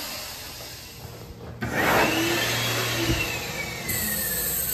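A loud rushing, motor-like noise starts suddenly about a second and a half in, with a whine that rises and then slowly falls. Near the end a hiss of water from the sink's push-button faucet joins it.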